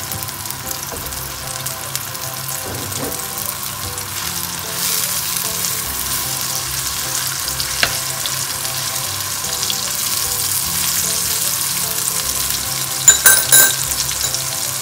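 Meat frying in butter and olive oil in a pan, a steady sizzle that grows a little louder about five seconds in. A few sharp clicks come near the end.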